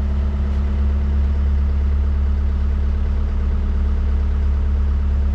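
Truck engine idling steadily, a constant low hum, heard from inside the cab.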